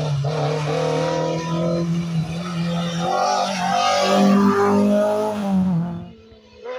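Peugeot 106 rally car engine revving hard as it comes up the road and passes close by, its pitch climbing and dropping back with each gear change. It is loudest about four seconds in and cuts off abruptly about six seconds in.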